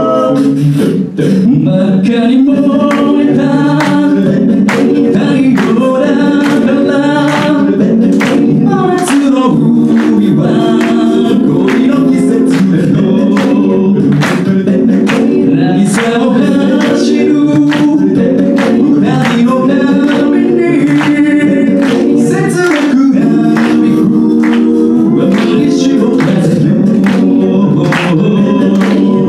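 An a cappella vocal group singing in multi-part harmony, with a bass line and vocal percussion beatboxing a steady beat beneath the voices.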